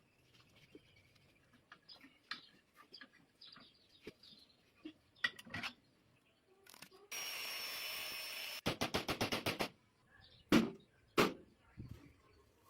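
Scattered light clicks and knocks of handled metal, then a steady hiss lasting about a second and a half, cut into a quick stutter of about ten pulses, and two sharper knocks near the end.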